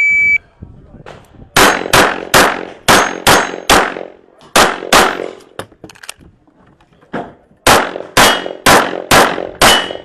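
Shot-timer start beep, then a competitor firing a handgun in fast strings of shots about two or three a second, with a pause of about two seconds midway before the shooting picks up again.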